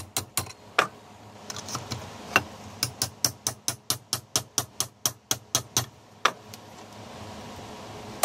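Hammer blows on a steel tab clamped upright in a bench vise, bending it over: sharp ringing metallic strikes, a few at first, then about three a second, stopping a little over six seconds in.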